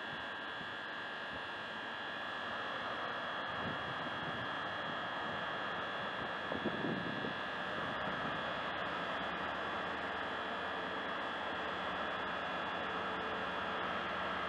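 Class 43 High Speed Train power car approaching slowly: steady high-pitched engine whine over a noisy rumble that slowly grows louder.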